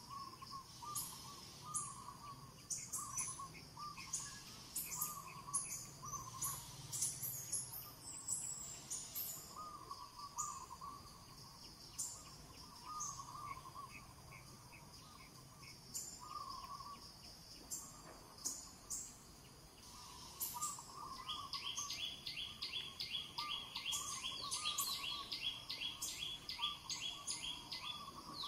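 Outdoor birdsong: several birds chirping and calling, with a repeated warbling call and scattered sharp high chirps. About three quarters of the way through, a fast, even run of repeated high notes joins in.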